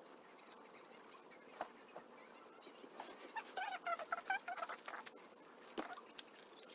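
Small handling sounds of unpacking squishy toys: quick light clicks and rustles, with a run of short squeaks about three and a half to four and a half seconds in.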